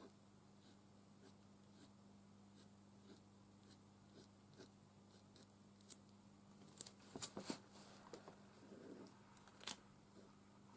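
Near silence: faint scratching and ticking of a fine-tip pen drawing on card, with a cluster of louder clicks about seven seconds in and another near the end, over a low steady hum.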